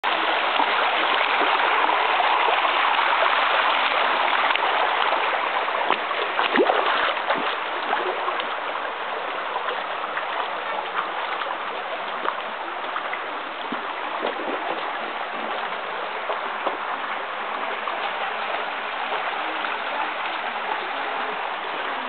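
Shallow creek water running steadily over rock, louder in the first few seconds, with a few sharp clicks about six to seven seconds in.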